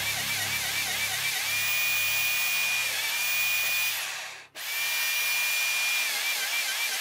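Electric drill-type power tool running, its high motor whine wavering up and down as the load changes. The sound drops out for an instant just past halfway, then the tool runs on more steadily.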